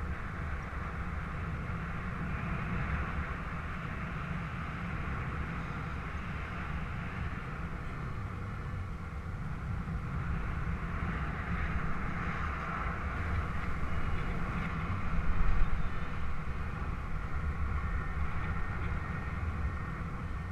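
Wind rushing over the microphone in paraglider flight: a steady low buffeting rumble under a hiss, with a louder gust about fifteen seconds in.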